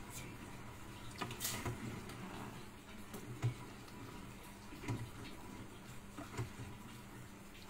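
A spoon stirring cassava in sugar syrup in a stainless steel pot, with a few short knocks of the spoon against the pot over a faint steady hum.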